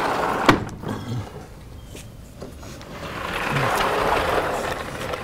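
Sliding chalkboard panels being pushed along their tracks: a scraping rumble, with a sharp knock about half a second in, and a second longer slide near the end.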